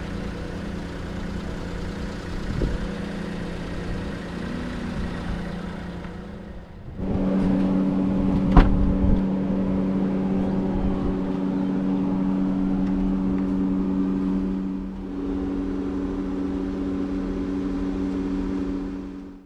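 Suzuki Spacia Base kei van driving, a steady engine hum and road rumble heard from inside the cabin. The hum gets louder and steps in pitch about seven seconds in, and changes again near the end.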